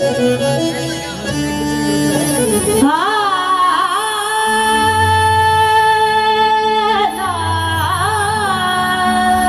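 Instrumental opening of a devotional bhajan. For about the first three seconds a harmonium plays a melody. Then a long held melody line with slow pitch glides takes over, over a pulsing low bass drone.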